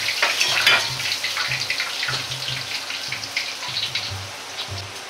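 Hot oil in a wok crackling and sizzling, dying down gradually, as chicken pieces fresh from their second, high-heat fry drain in a perforated skimmer above it.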